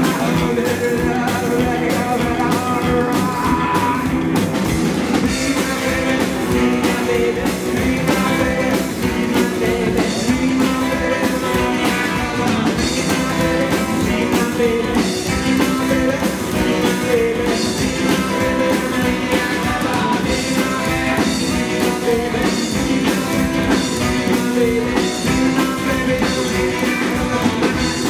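Live rockabilly band playing, a woman singing over electric guitars, upright double bass and drums.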